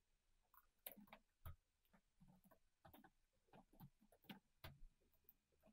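Faint, irregular clicking of computer keyboard keys during typing.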